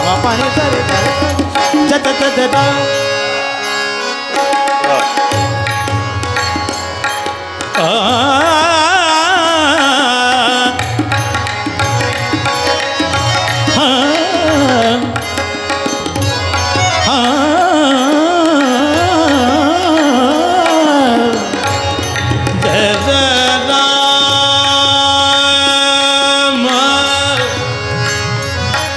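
Marathi devotional bhajan: a male voice sings long, ornamented runs that waver and glide in pitch, over a harmonium's steady held chords and a tabla keeping time.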